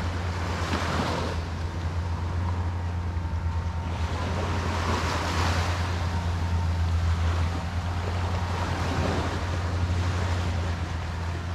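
Surf washing onto the shore, swelling and fading three times, over a steady low hum.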